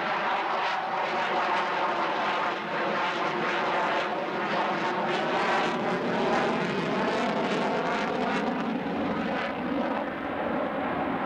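Lockheed Martin F-22 Raptor's twin jet engines running in afterburner during a low, manoeuvring display pass: a loud, continuous rushing jet noise that wavers and sweeps in pitch as the aircraft turns overhead.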